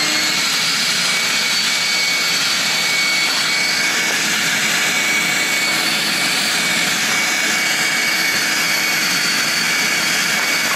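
Wet/dry shop vacuum running loudly and steadily, its nozzle drawn over a rubber car floor mat: a constant suction rush with a high, steady motor whine.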